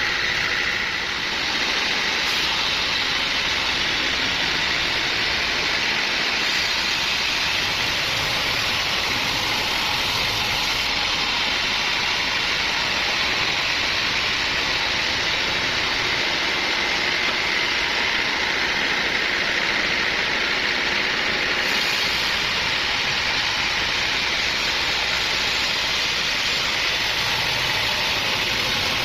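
Sawmill machinery running steadily, a continuous engine-driven mechanical noise with no breaks or sharp knocks.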